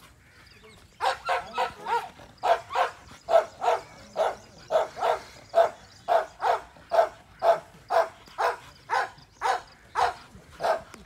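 Gultair (Pakistani Gull Terrier) dog barking over and over, about three barks a second, starting about a second in.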